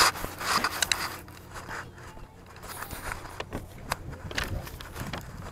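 Handling noise on a Transcend DrivePro Body 10 body-worn camera: rustling and scraping as a hand and clothing brush against it, with a sharp knock at the start and scattered clicks.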